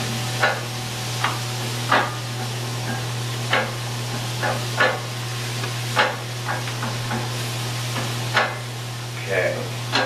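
Sliced button mushrooms and green pepper sizzling in butter in a sauté pan, stirred with a wooden spoon that knocks and scrapes against the pan now and then.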